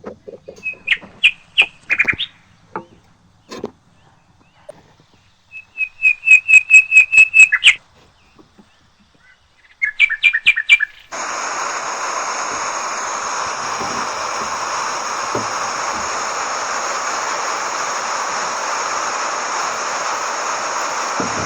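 Small birds chirping in short calls, with a rapid trill of about eight notes. About halfway through, a steady hiss of water spraying for garden watering starts suddenly and keeps on.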